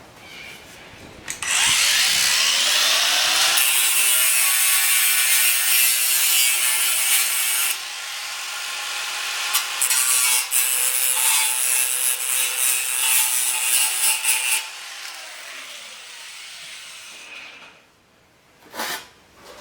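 Rotary cut-off tool spinning up and cutting through rusted car body sheet metal, a steady harsh grind for about thirteen seconds, then spinning down. A short knock near the end.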